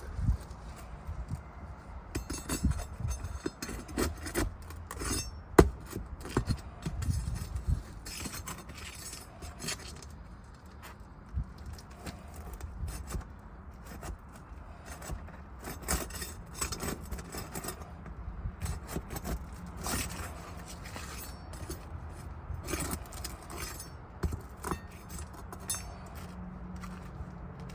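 Irregular scraping, sharp taps and metallic clinks from a hand tool being worked under asphalt shingles to break their seal. The shingles are sealed down too tightly to come loose.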